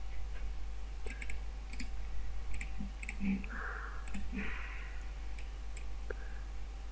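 Computer mouse clicking a dozen or so times at irregular intervals, over a faint steady electrical hum.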